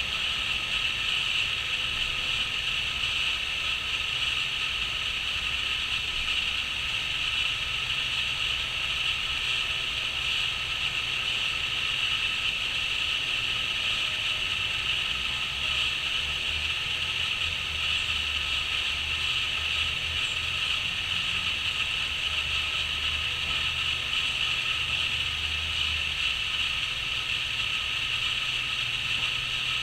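A chorus of crickets chirping, a dense continuous high trill that holds steady throughout.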